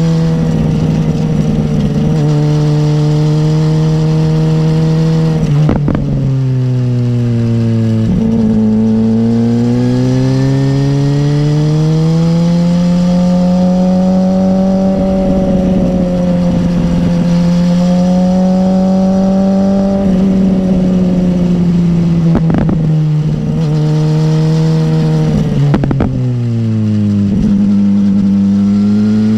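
BMW S1000R's inline-four engine running hard on the throttle. The revs drop sharply twice, about a fifth of the way in and again near the end, with a few sharp cracks. Each time they climb back up and hold steady as it pulls.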